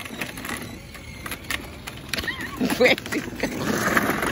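A young child's brief wavering vocal sound about two and a half seconds in, over light scattered clicks and rattles.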